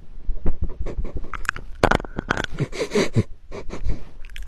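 Dachshund sniffing and breathing close into a small microphone held at its nose, in short irregular snuffles and clicks.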